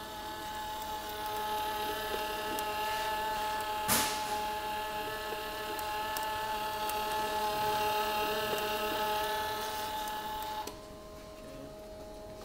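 MIG welder's wire-feed motor running at full wire speed, its drive rolls pulling welding wire off the spool and through the gun liner: a steady whine over the machine's hum. A single sharp click comes about four seconds in, and the feed stops suddenly near the end, leaving only the hum.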